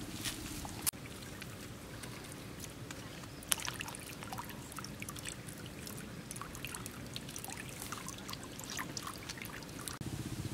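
Close handling sounds around a wicker basket as water beetles are gathered into it: scattered light clicks and rustles, with a sharper knock about a second in and another about three and a half seconds in, over a steady low hum.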